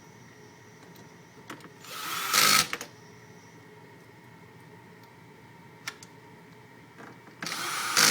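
Powered screwdriver driving motherboard screws into a server chassis, on a low torque setting so as not to strip them. There are two short runs about five seconds apart; each builds up and ends in a brief louder burst as the screw seats. A few small clicks come between the runs.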